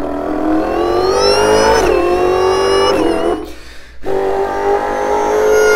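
A man's voice imitating a supercharged V8 muscle car revving, with a rising engine note and a high supercharger whine on top. There are two long revs, split by a short pause about three and a half seconds in.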